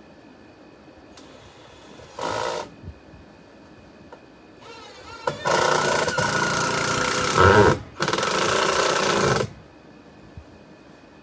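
Power drill driving screws into wood: a short burst about two seconds in, then two longer runs of about two seconds and a second and a half with a brief stop between.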